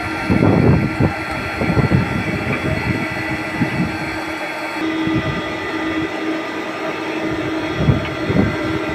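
Three-roll plate bending machine running with a steady mechanical hum, with irregular louder low rumbles and knocks as the steel plate is rolled into a shell.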